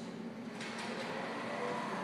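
Automatic sliding glass doors opening: the door drive running with a faint whine, growing a little louder toward the end.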